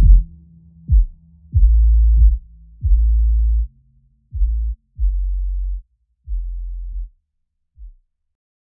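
Electronic background music: a line of deep, held bass notes, each with a sharp start, growing quieter and sparser until it stops about eight seconds in.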